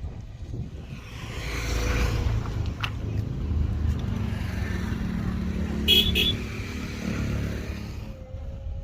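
A motor vehicle passes, its engine and road noise swelling and then fading away. Two short high beeps come about six seconds in.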